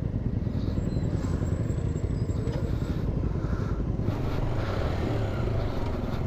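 Honda TMX 125 single-cylinder four-stroke motorcycle running on the road, a steady low rumble throughout.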